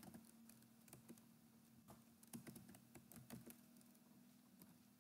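Faint typing on a computer keyboard: a quick run of key clicks that thins out after about three and a half seconds, over a low steady hum.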